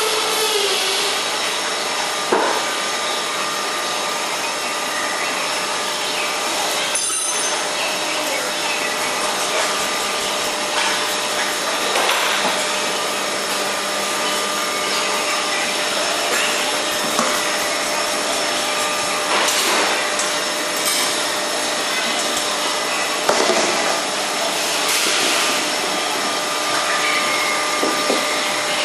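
Steady machine whirr with faint humming tones, broken by a few short knocks and clatters.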